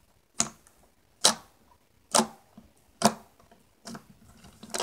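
Fingertips poking thick white slime, each poke giving a sharp wet pop, four of them about a second apart. Near the end come softer, scrappier squishes as the slime is pinched and squeezed between both hands.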